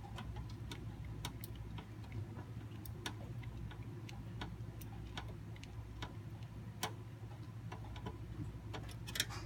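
Light, irregular clicks and taps of computer parts, screws and cables being handled during PC assembly, over a steady low hum.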